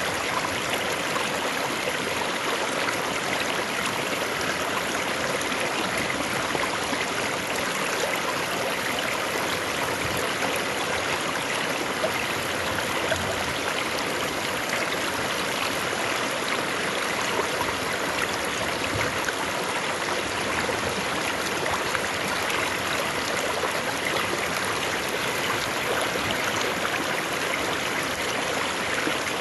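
River water flowing, a steady, unbroken rush of running water.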